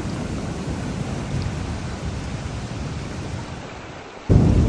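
Heavy rain with a deep, continuous thunder rumble. It eases slightly, then suddenly becomes much louder near the end.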